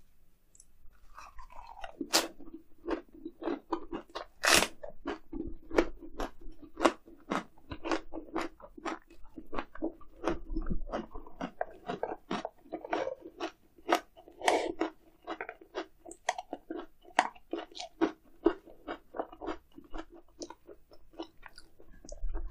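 Close-miked chewing of grilled eel in a lettuce wrap: after about two seconds, wet crisp crunches come about two or three times a second, a few of them louder than the rest.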